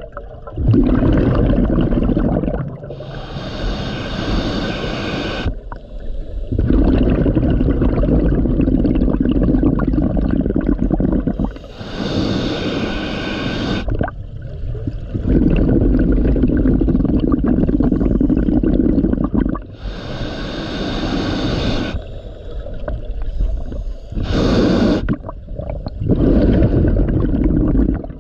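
Scuba diver breathing through a regulator underwater: a hissing inhale lasting about two seconds, then several seconds of bubbling exhale, in a slow repeating cycle of roughly eight seconds, with three long inhales and a short one near the end.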